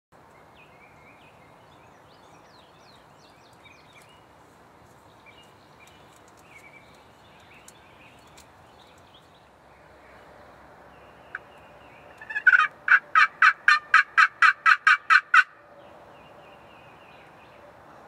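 Turkey yelping: a loud run of about a dozen evenly spaced notes, about four a second, starting about twelve seconds in and lasting some three seconds. Faint songbird chirps come before it, and a single sharp click just before the yelps.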